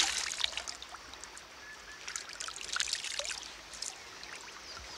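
Clear, shallow stream trickling, with water splashing and dribbling from cupped hands back into it.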